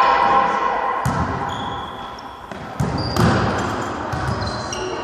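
Volleyball rally on an indoor court: the ball is struck and hits the floor with sharp smacks about a second in and again around two and a half to three and a half seconds in, ringing in the hall. Sneakers squeak on the court floor several times in short high chirps.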